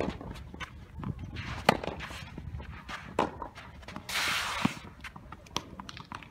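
Tennis rally: sharp racket-on-ball hits and ball bounces ring out several times, the loudest a little under two seconds in. About four seconds in comes a brief scraping hiss of tennis shoes sliding on the sandy court as a player lunges for a low ball, followed by another hit.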